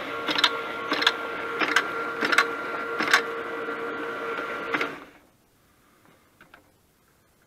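AFM80ST automatic postage stamp applier running, with a steady motor hum and an uneven clack as each envelope is fed through and stamped, about one to two a second. The motor stops about five seconds in, leaving near silence with a few faint ticks.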